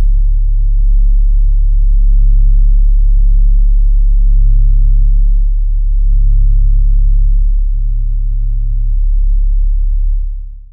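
A loud, steady deep bass drone, close to a pure low tone, held on after the song's full sound stops and fading out near the end.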